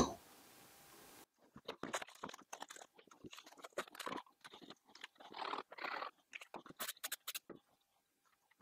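Blue painter's tape and oak pieces being handled on a workbench: faint, irregular crinkling and scraping of tape, with two longer rasps in the middle and a quick run of light clicks a little later.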